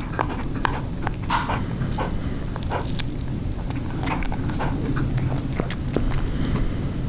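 Tabby cat chewing a raw chicken neck: irregular sharp clicks of teeth on meat and bone, a few each second. Her teeth are weak, so she chews lightly and tries to swallow pieces whole.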